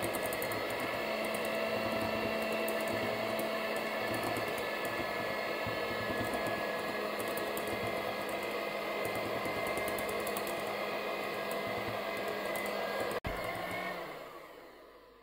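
Moulinex electric hand mixer running at a steady speed with an even whine, its beaters whisking egg, sugar and melted chocolate into a batter. There is a brief break about 13 seconds in, and the sound dies away near the end.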